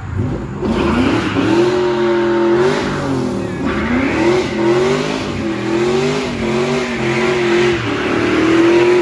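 Car engine revving hard during a burnout, coming in about half a second in, its pitch rising and falling again and again as the throttle is worked, over a broad rushing noise.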